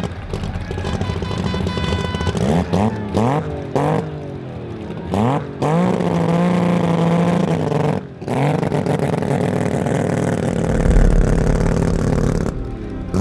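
Drag car's engine revving in sharp blips at the starting line, then held at one steady high pitch for a couple of seconds. About eight seconds in it cuts briefly and pulls up through the revs for several seconds.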